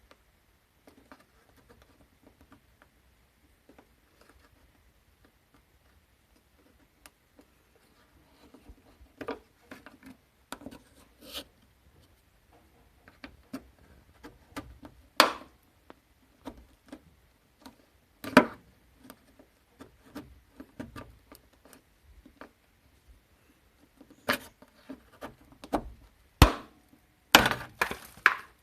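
Irregular clicks and knocks of hand tools being handled and set down during bodywork. Sparse at first, busier in the second half, with several sharp louder knocks toward the end.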